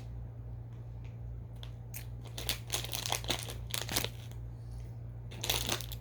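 Candy wrapper being handled, crinkling in irregular bursts, with a steady low hum underneath.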